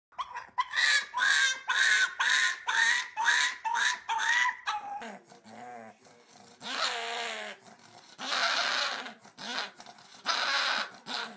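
A dog giving a quick run of about eight high-pitched yelps, roughly two a second, followed by three longer, rougher, raspy cries.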